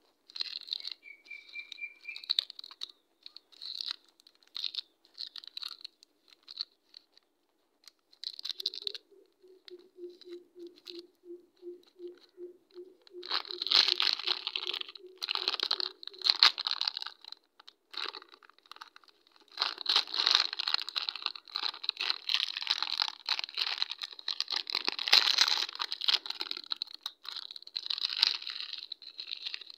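Crinkling and tearing of plastic snack wrappers handled by hand: small candy wrappers at first, then a chocolate chip cookie pack and its foil inner tray being torn open. The rustling comes in short, scattered bursts, then grows louder and denser from about halfway on.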